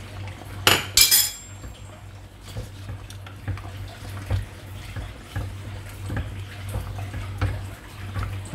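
Metal utensil clattering against a cooking pot, two loud clanks about a second in, the second with a brief metallic ring, then lighter taps and scrapes against the pot while the curry is worked. A steady low hum runs underneath.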